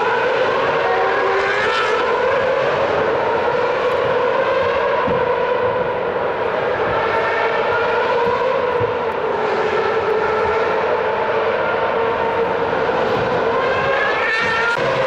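Formula 1 cars' 2.4-litre V8 engines running at high revs around the circuit, a continuous high-pitched drone from several cars at once. The pitch climbs as cars accelerate out of corners, most sharply near the end as a car passes close by.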